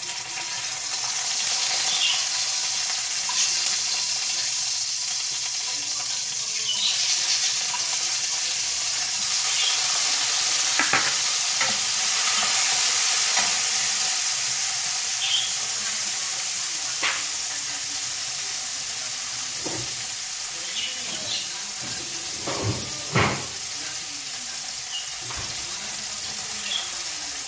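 Food frying in a hot pan on a stove, a steady loud sizzle that swells in the first couple of seconds. A cooking utensil stirring it gives a few sharp knocks against the pan, the loudest about 23 seconds in.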